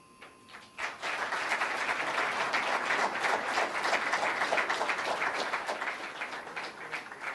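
Audience applauding: a few scattered claps, then full applause from about a second in that holds steady and tails off near the end.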